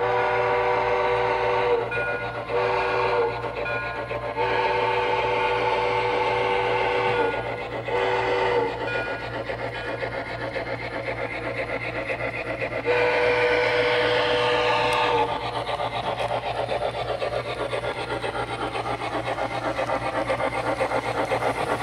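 HO-scale model steam locomotive's DCC sound decoder playing a chime steam whistle through its small speaker: a long blast, a short one, a long one and a short one, then after a pause another long blast about 13 s in. Under it runs the locomotive's steady rasping chuff.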